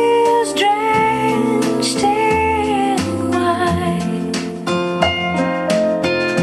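Soft jazz-pop ballad played back through a Creative Sound Blaster Roar SR20 portable speaker: a woman sings long, gently bending notes over bass and keys, giving way about four seconds in to an instrumental passage of plucked guitar and piano notes.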